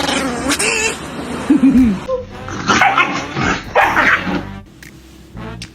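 A pet dog vocalizing in short pitched sounds that rise and fall, with music playing behind.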